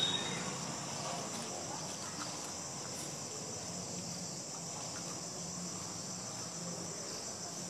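Steady high-pitched insect chirring over a faint low hum.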